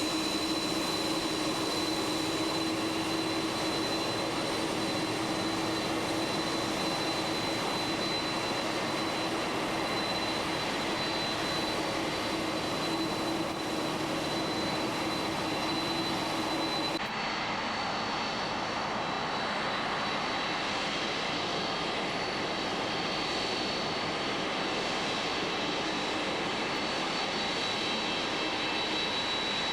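Jet aircraft engines running steadily: a constant rush of engine noise with a steady high whine over it. The tones and sound change abruptly about 17 seconds in.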